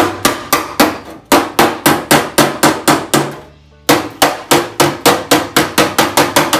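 Body hammer tapping in a quick, even series, about four strikes a second, on a 1966 Plymouth Belvedere's steel front fender, with a flat dolly held behind the panel. This is off-dolly work to raise a low spot that the welding clamp pulled in and to lower the metal beside it. The tapping stops for about half a second a little past halfway, then picks up again.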